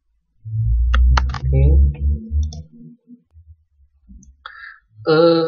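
A few computer mouse clicks over a low, muffled rumble on the microphone, with a voice starting near the end.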